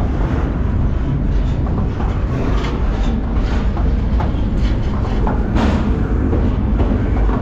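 Freight train rolling, heard from aboard one of its cars: a steady heavy low rumble with irregular clanks and rattles.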